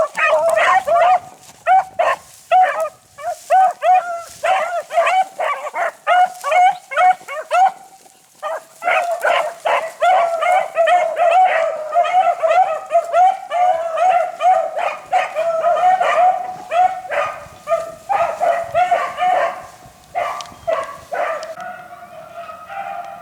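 A pack of beagles baying in full cry as they run a rabbit's track, a rapid string of barks. The calls break off briefly about eight seconds in, then return as several dogs giving tongue at once, and fade near the end.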